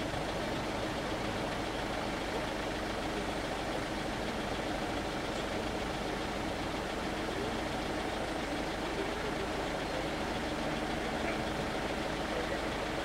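Steady low engine hum of cars idling while they wait at a closed level crossing.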